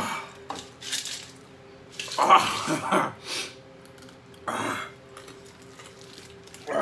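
A drinking glass being handled, with a few short irregular clinks and knocks; the loudest comes about two seconds in.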